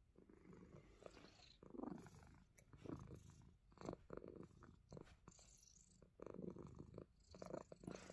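Himalayan Persian cat purring quietly, the low rumble swelling and fading with each breath, with a few soft clicks.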